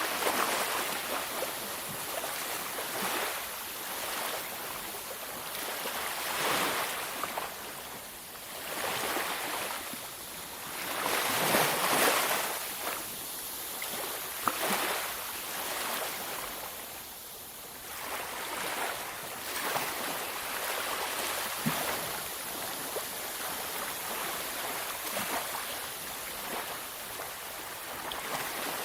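Waves washing onto a beach: a steady rush of surf that swells and falls every few seconds, with one larger wave breaking about twelve seconds in.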